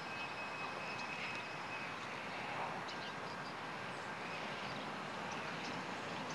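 Faint, steady rumble of an approaching light-rail trolley train, heard as an even noise with a few light clicks.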